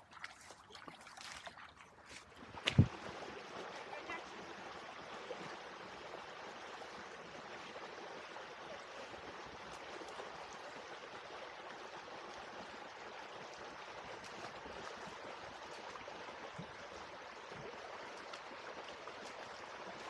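A single loud knock about three seconds in, then the steady rush of a flowing stream.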